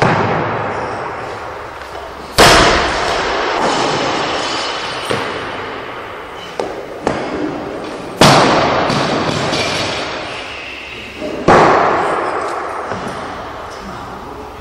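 Loaded Olympic barbell with bumper plates dropped onto the lifting platform, three loud slams a few seconds apart, each followed by a long echoing fade, with a few lighter knocks in between.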